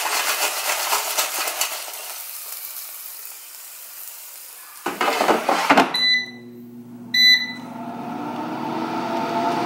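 Gourmia digital air fryer: a hiss from the hot, pulled-out basket that fades over a few seconds, a clatter as the basket goes back in, two short beeps from the touch panel, then the fan motor starting with a steady hum that grows louder.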